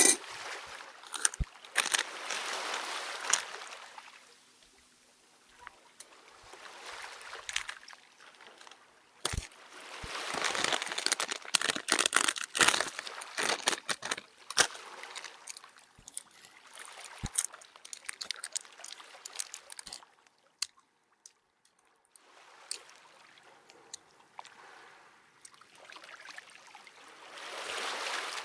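Water splashing and sloshing in uneven bouts, with scattered small clicks and knocks and a quieter lull past the middle.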